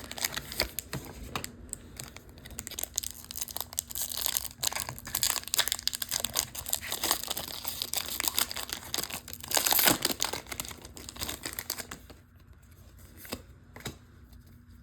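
Foil booster-pack wrapper being crinkled and torn open: a long run of crackling, with the loudest tear about ten seconds in. It then goes quieter, with a couple of small clicks near the end.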